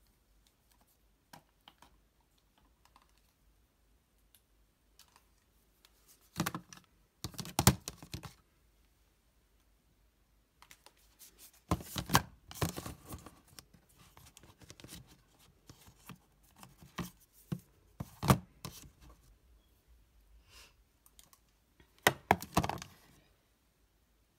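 Makeup compacts and palettes being set down and shuffled into plastic drawer baskets: an irregular clatter of clicks and knocks, with several louder clusters of knocking.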